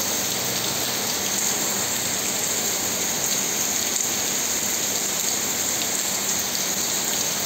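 Heavy rain falling steadily, an even, unbroken hiss of rain on surfaces.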